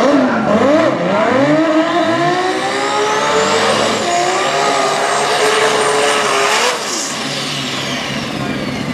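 Turbocharged 2JZ inline-six drag car revving in short blips, then climbing to high revs and holding there through a burnout with the rear tyres spinning. It lets off sharply about seven seconds in, dropping to a lower, quieter run while a high whistle falls away.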